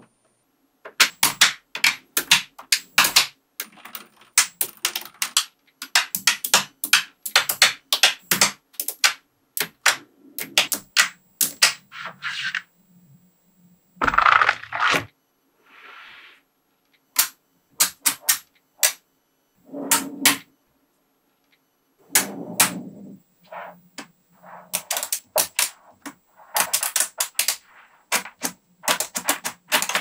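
Small magnetic metal balls clicking and clacking as rows of them snap together and are pressed into place, in quick clusters of sharp clicks. A few short rattling rushes come in between, as the rows are slid and stacked.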